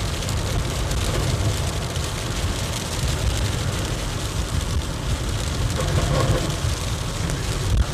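Steady patter of rain and hail on a moving car, mixed with the rumble of tyres on a slushy, hail-covered road, heard from inside the cabin.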